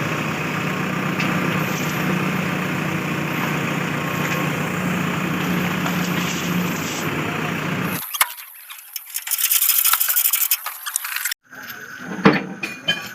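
Heavy vehicle's diesel engine running steadily, cutting off abruptly about eight seconds in; then only thin scattered clinks and clattering.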